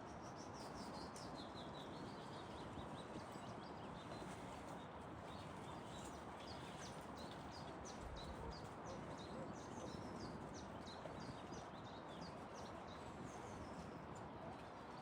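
Birds chirping and singing with many quick high notes, over a steady, faint outdoor background hiss.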